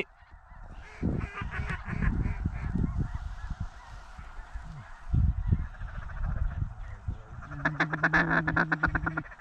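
A flock of waterfowl calling steadily, geese honking and ducks, with wind gusting on the microphone. Near the end there is a loud run of rapid pulsed calls lasting about a second and a half.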